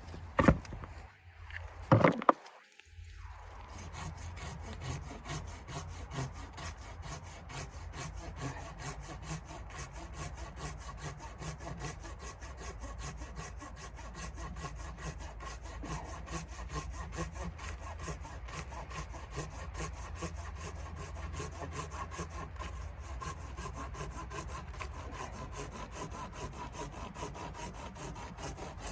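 A saw cutting through wood with steady, continuous strokes, after two sharp knocks at the start.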